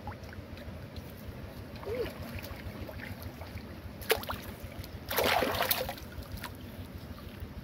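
Water splashing in a shallow muddy pool as a long object is swished through it by hand, about five seconds in, over a steady low rumble; a sharp click comes just before the splash.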